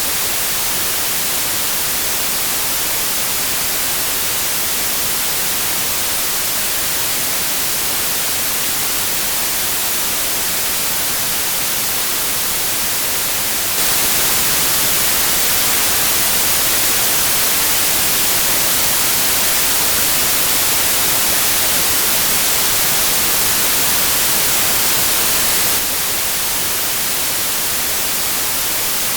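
Steady white noise: an even, hissy rush with no tone or rhythm in it. It steps up a little in loudness about fourteen seconds in and drops back about twelve seconds later.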